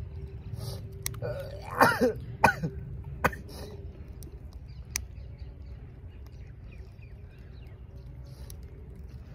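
A person coughing and clearing their throat, two loud bursts with falling pitch about two seconds in, with a few sharp clicks scattered around them over a faint steady hum.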